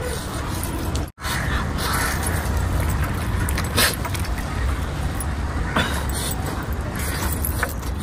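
Metal bracelets and rings jangling and clinking as hands tear and handle cooked meat, with a sharp clink about four seconds in, over a steady low rumble. The sound cuts out for an instant about a second in.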